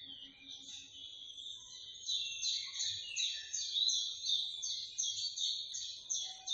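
Birds chirping: high, rapidly repeated notes that settle into an even series of about three a second from about two seconds in.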